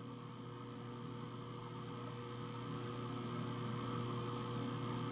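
Steady electrical hum with a faint hiss, creeping slightly louder; no other sound.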